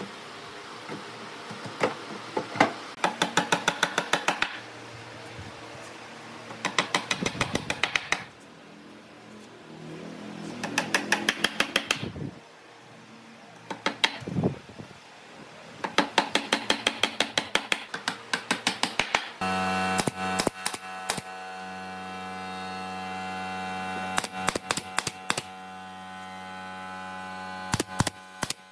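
Repeated bursts of rapid mechanical clicking, about eight to ten clicks a second, each burst lasting one to three seconds. About two-thirds of the way through, a steady electrical hum starts and carries on under further bursts of clicking.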